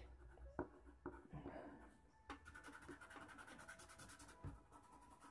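Faint scratching of a charcoal stick on drawing paper, with a hand rubbing over the paper, broken by a few light clicks.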